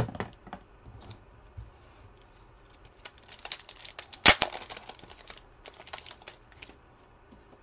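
Foil trading-card pack wrapper crinkling and crackling as it is handled and torn open, with one sharp rip about four seconds in. A single knock comes right at the start.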